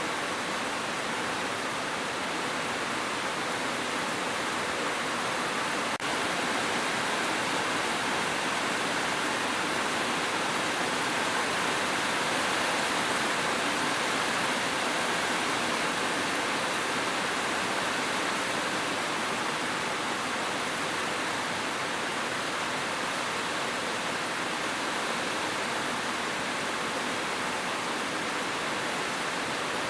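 Steady, even hiss of heavy rain, with no separate drops or thunder standing out.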